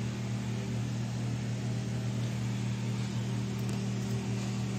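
Steady low machine hum with an even hiss behind it.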